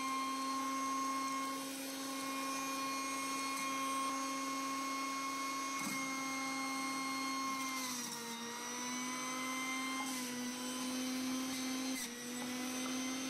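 Sujata electric juicer's motor running steadily with a high whine while juicing carrots and beetroot. Its pitch sags briefly about eight seconds in and again near the end.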